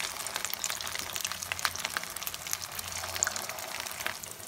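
Potato-stuffed bread rolls deep-frying in hot refined oil: a steady sizzle full of small crackles and pops.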